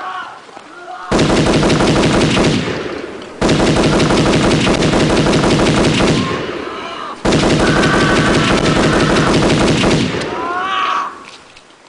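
Automatic gunfire in three long bursts of very rapid shots, each starting abruptly and tapering off, about one, three and a half and seven seconds in.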